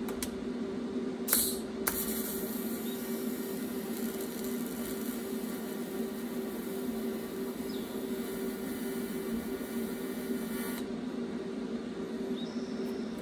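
TIG welding arc tacking a metal rod held in a vise: a steady hiss that strikes about a second in and cuts off suddenly near the end, over a steady background hum.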